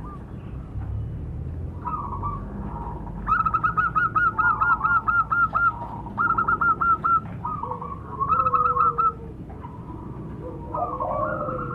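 Zebra doves (perkutut) calling: quick runs of repeated staccato cooing notes in several bursts, the first starting about three seconds in.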